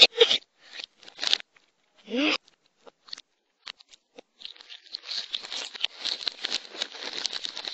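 Crinkling and rustling of packaging, made up of many small crackles, running on from about four and a half seconds in. Before that come three short crackly bursts, one of them with a brief rising vocal sound about two seconds in.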